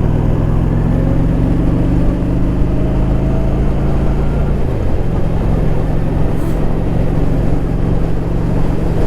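Honda Shadow Spirit V-twin cruiser motorcycle engine running steadily while riding. The engine note sags briefly about five seconds in, then holds steady again.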